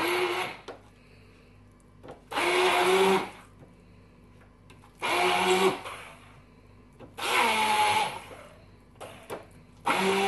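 Electric hand (stick) blender pulsed in short bursts, each about a second long and two to three seconds apart. It is grinding thick cooked chana dal and minced meat, a little at a time, into shami kabab mixture.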